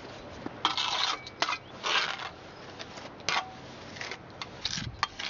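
Steel trowel scraping and scooping wet clay-and-sand cob out of a bucket and off a flat metal board, a series of short scrapes with a few sharp clicks.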